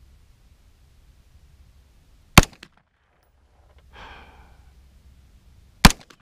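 Two single shots from a 9mm KE Arms AR9 pistol, about three and a half seconds apart, each a sharp crack with a brief echo.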